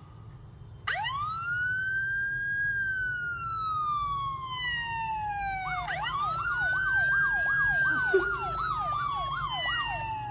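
Recorded police siren played on a phone's speaker. About a second in, a wail rises and then slowly falls. About six seconds in it rises again and switches to a fast yelp of roughly three warbles a second.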